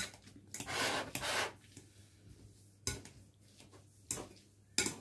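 Wire potato masher working boiled potatoes in a glass bowl: a few sharp metal clinks against the glass and a longer scraping mash about a second in.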